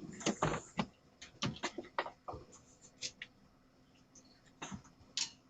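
A dozen or so irregular clicks and knocks, sharp and short, scattered throughout, over a faint steady hum.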